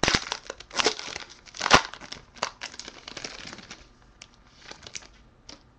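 Trading-card pack wrapper being torn open and crinkled by hand, with sharp crackles loudest in the first two seconds, dying down after about four seconds to a few faint clicks as the cards are handled.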